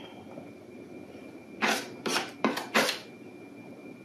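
A stiff-bristled paintbrush scratching across a painted board, in about four quick strokes past the middle.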